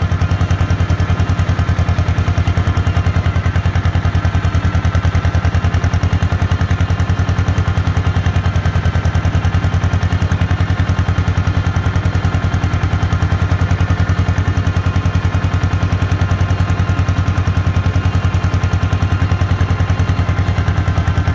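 1948 John Deere Model M's two-cylinder engine pulling steadily in third gear up a steep grade, its exhaust beats coming in a fast, even pulse.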